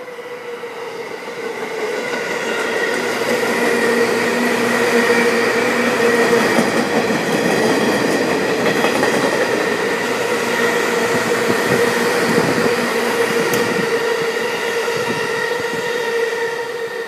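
JR East 211 series electric train passing through a station at speed without stopping: a loud wheel-on-rail rush with a steady traction-motor whine. It builds up over the first couple of seconds as the train arrives and drops away near the end as the last cars go by.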